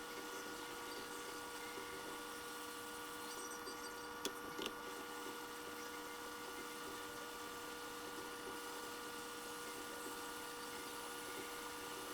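Steady electrical hum of bench equipment, made of several constant tones, with two light clicks about four seconds in.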